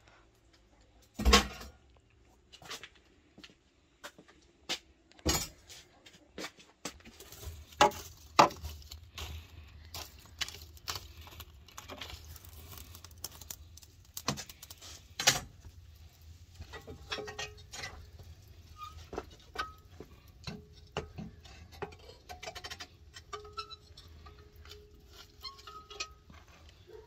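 Metal clanks and knocks as the iron trivet and cover of a clay tandir oven are lifted and handled. The clanks come irregularly, the loudest about a second in and again around five, eight and fifteen seconds in.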